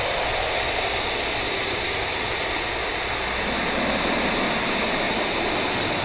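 Loud, steady TV static: an even white-noise hiss with no tone in it.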